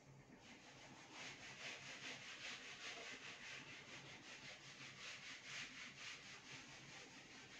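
Whiteboard duster rubbing quickly back and forth over a whiteboard, erasing marker writing, in a steady rhythm of about four strokes a second that starts about half a second in.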